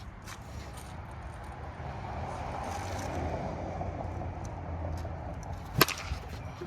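A passing road vehicle swells and fades over a steady low hum. About six seconds in comes a single sharp knock.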